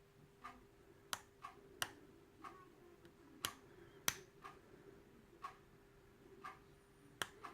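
Faint, irregular clicks of a hook pick working the pin tumblers of an American Lock 5200 series padlock under tension, about one or two a second. The clicks come from pins setting and from the serrations on the pins catching at the shear line.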